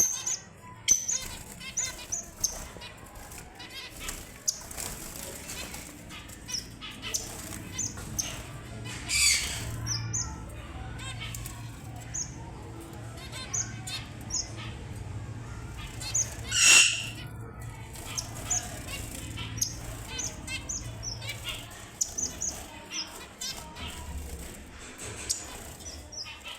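Red avadavats (strawberry finches) calling, a run of short, high chirps with wing fluttering among them, and two louder calls about 9 and 17 seconds in.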